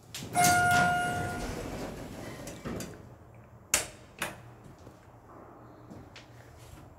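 Schindler MT 300A hydraulic elevator arriving at a floor: a single chime rings for about a second as the car doors slide open, their noise fading over about two seconds. Two sharp clicks follow about halfway through, from the car's buttons being pressed.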